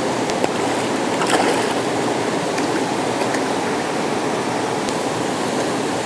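Steady rush of flowing water from a stream and waterfall.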